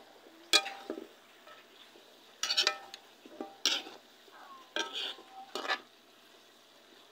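Metal cooking spoon scraping and clinking against a metal pan as bitter melon, meat and onions are stir-fried: about half a dozen scrapes with a brief metallic ring, coming unevenly, over faint sizzling.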